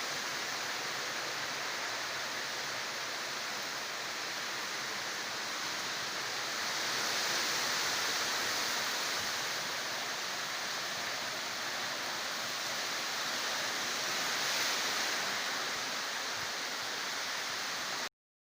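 Tropical storm wind and rain, a steady rushing that swells in two gusts, then cuts off suddenly near the end.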